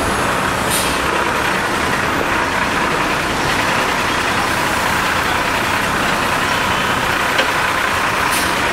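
A city bus's engine running amid steady street traffic noise.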